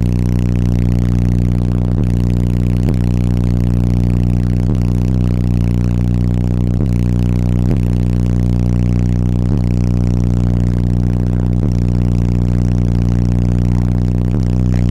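Two 18-inch Sundown ZV4 car subwoofers on an SK4500 amplifier playing a loud, steady low bass tone that does not change in pitch, heard from inside the car.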